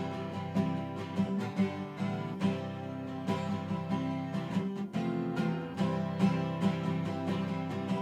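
Music led by a strummed acoustic guitar, with a steady beat.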